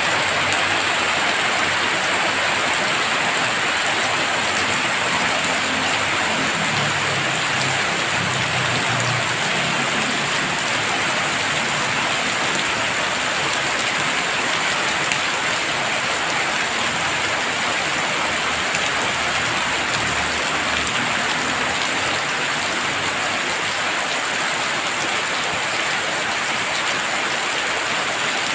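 Heavy rain falling steadily in a dense hiss of drops, with a faint low rumble underneath from about six to eleven seconds in and again around twenty seconds in.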